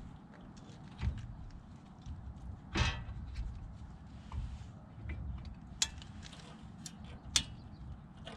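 Brake caliper being fitted over a front disc brake rotor: scattered metal clicks and knocks of the parts being handled, the loudest a short scraping clunk about three seconds in, then two sharp clicks near the end, over a steady low rumble.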